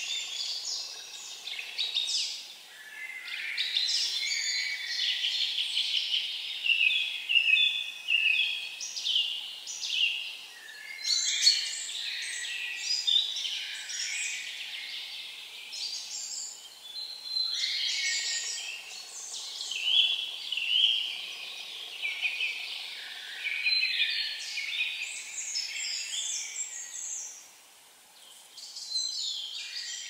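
Songbirds singing in the forest, song phrase after song phrase overlapping, with short pauses between bouts.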